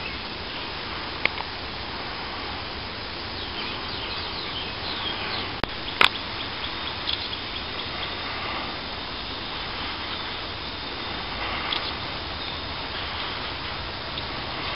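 Outdoor ambience: steady background noise with a few faint bird chirps, and two sharp clicks, the louder one about six seconds in.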